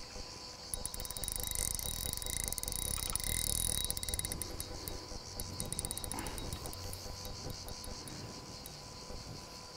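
A dense chorus of chirring insects, a high buzz that swells about a second in and slowly fades toward the end.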